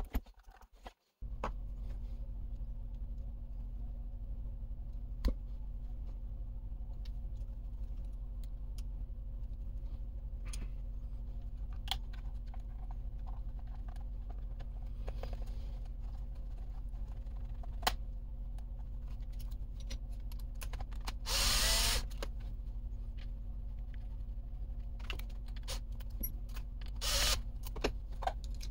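A cordless drill-driver runs in a short burst of about a second, its pitch wavering, and again briefly near the end, among scattered small clicks and taps of tools and plastic parts. A steady low hum runs underneath.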